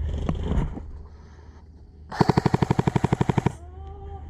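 Airsoft electric gun firing one full-auto burst of about a dozen shots a second, lasting under a second and a half, about two seconds in.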